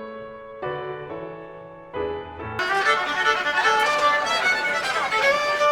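Background music: gentle piano chords, then about halfway through a fuller arrangement comes in, with a sliding violin-like lead melody.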